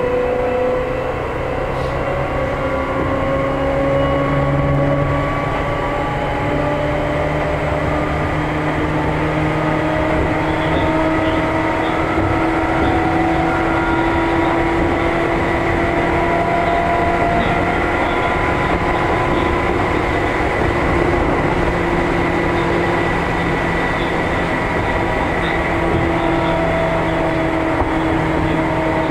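Seibu New 2000 series field-chopper electric train running, heard from inside the car: motor whine in several tones rising slowly in pitch as it gathers speed, over steady rolling noise, with a steady high whine alongside.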